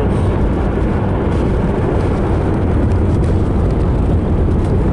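Car driving along a road: a steady, loud rumble of engine and tyre noise.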